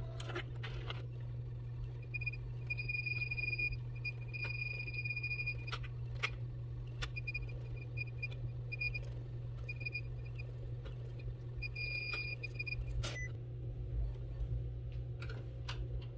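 Epson WorkForce WF-7840 inkjet printer printing a sheet: a high motor whine in repeated short passes, a few sharp clicks, all over a steady low hum. The whine starts about two seconds in and stops with a click near the end.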